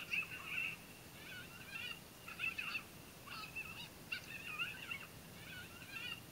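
A group of coyotes yipping and howling: high, wavering calls that break off and start again several times.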